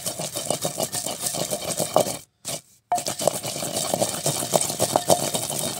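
Wooden pestle grinding wet melon seeds in a terracotta mortar: a fast, rhythmic run of knocks and scrapes of wood on clay. It drops out briefly a little after two seconds in, then carries on.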